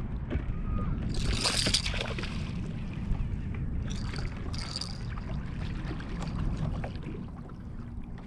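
Steady low wind and water noise around a bass boat while a hooked bass is fought. A louder splashy hiss comes about a second in and two shorter ones around four and five seconds in, as the fish thrashes at the surface.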